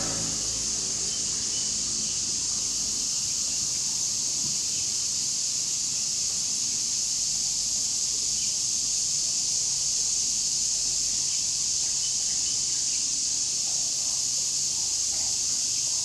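Steady chorus of cicadas, a high, unbroken shrill hiss that holds an even level throughout.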